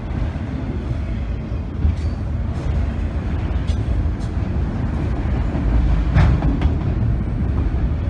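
Freight train of autorack cars rolling past close by: a steady low rumble of steel wheels on rail, with several brief sharp clicks and squeaks from the wheels, the loudest about six seconds in.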